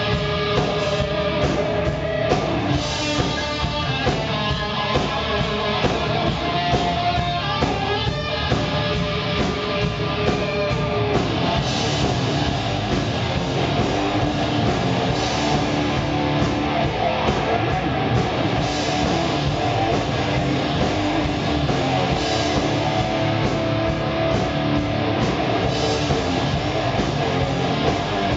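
Live rock band playing: an Ibanez electric guitar leads with held, shifting notes over bass guitar and a drum kit.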